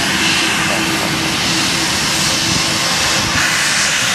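A twin-engine jet airliner's engines running on the runway, a steady loud rushing jet noise.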